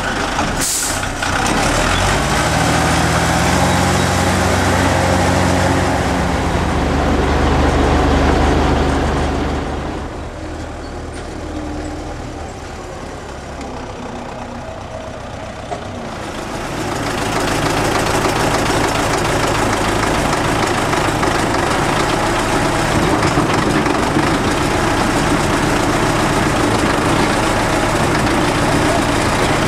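Farm tractor's diesel engine running steadily at a feed mixer wagon. The sound drops away for several seconds about a third of the way in, then returns as steady running machinery.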